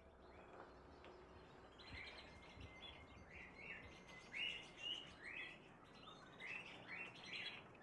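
Caged parrots, lovebirds among them, chirping: many short, high chirps that begin about two seconds in and come thicker toward the end, over a faint steady hiss.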